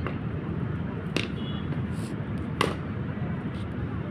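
Cricket bat striking a ball twice: two sharp cracks about a second and a half apart, over a steady low background rumble.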